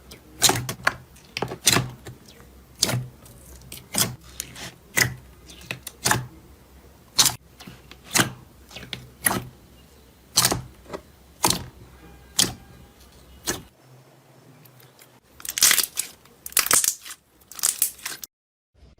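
Slime being pressed and poked by hand, giving a run of sharp pops and clicks about one or two a second. After a cut, a few longer crackling squishes.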